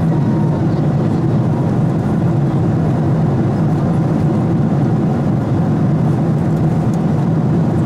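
Steady low cabin drone of a Boeing 777-200 in flight: engine and airflow noise heard inside the passenger cabin.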